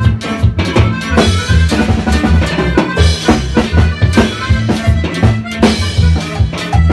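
A band playing upbeat Latin dance music: a drum kit keeps a quick, steady beat over a heavy bass line.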